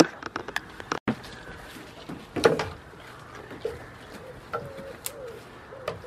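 A few sharp knocks, the loudest about two and a half seconds in, then a bird cooing in a repeating low phrase from about halfway through.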